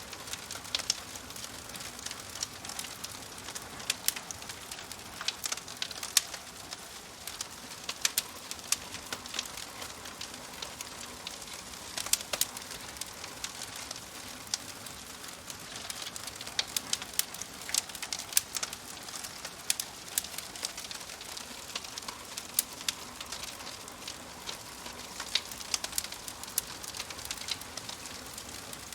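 Wood fire crackling: a steady hiss with frequent sharp, irregular pops and snaps.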